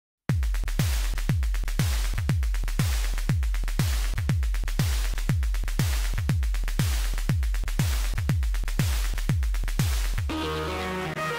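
Electronic music with a deep drum-machine kick about twice a second, starting abruptly. Near the end the beat gives way to sustained chords.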